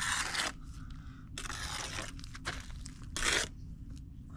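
Brick and steel trowel scraping against wet mortar as a brick is bedded down and trimmed to the line, in about four short scrapes.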